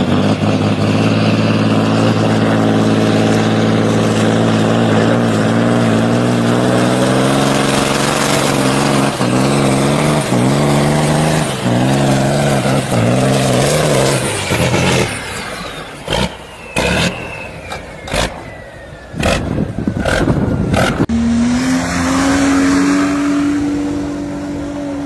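Diesel engine of a semi-truck tractor stuck in deep snow, running at high revs, then revved up and down repeatedly as it tries to break free, pouring black smoke. The sound then breaks into short loud bursts. Near the end an SUV engine holds a steady high rev that rises slightly.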